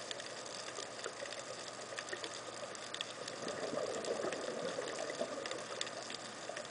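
Underwater bubbling of a scuba diver's exhaled breath rising from the regulator, swelling about three and a half seconds in and easing off near the end, with scattered sharp clicks throughout.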